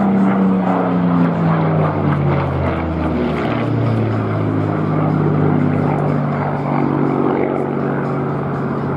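Supermarine Spitfire's Rolls-Royce Merlin V12 engine heard during a display fly-past. Its note drops in pitch over the first few seconds as the aircraft passes, then holds a steady drone.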